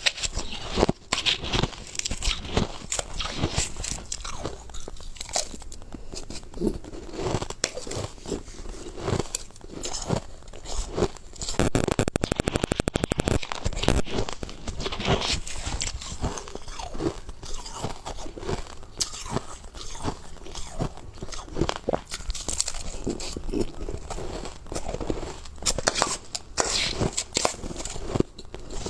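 Shaved ice being bitten and chewed close to the microphone: a steady run of sharp, irregular crunches.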